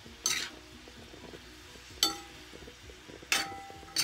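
A stirring utensil knocking against a stainless steel frying pan while vegetables are stirred in it: four clinks, each with a short metallic ring. One comes early, one about halfway, and two close together near the end.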